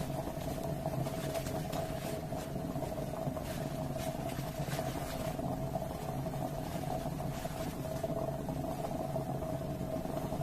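Coffee maker running while brewing: a steady hum with irregular faint crackles.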